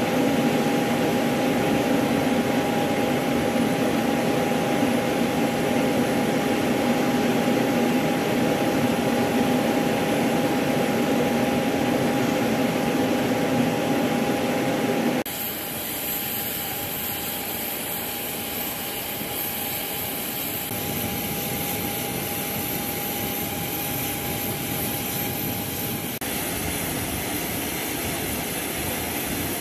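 Steady whine and rumble of aircraft turbine engines on a flight line, with a high tone held throughout. About halfway through it suddenly drops to a quieter, thinner whine, which changes slightly again near the end.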